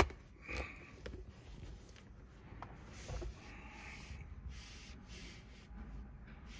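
Faint rustling and handling noise, with a sharp click at the very start and a few soft ticks.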